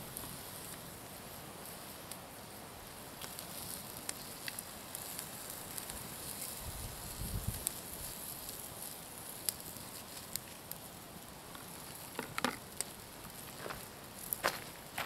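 Wood fire crackling under a grill grate, with meat sizzling over it: a steady hiss with scattered small pops. There is a dull thump about seven seconds in, and a few sharper knocks and scuffs near the end.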